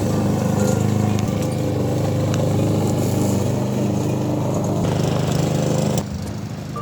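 Petrol lawn mower engine running steadily. About six seconds in it cuts off abruptly, leaving a quieter background.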